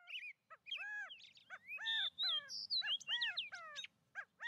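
Birds singing outdoors: a busy run of short, arched chirps, about three a second, with a brief higher falling whistle a little over two seconds in.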